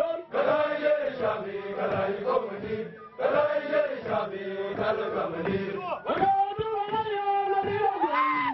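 A large group of soldiers' voices chanting a song together, in phrases of about three seconds with short breaks between them.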